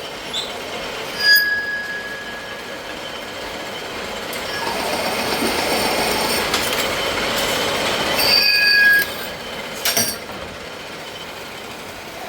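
Lathe cutting a thread on a metal pipe: a steady grinding metal-cutting noise that builds over the middle seconds, with high-pitched squeals from the tool on the pipe about a second in and again a little past halfway, and a sharp click near the end.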